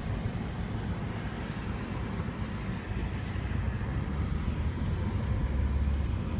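Steady road and engine rumble of a moving car, heard from inside, with a stronger low rumble near the end.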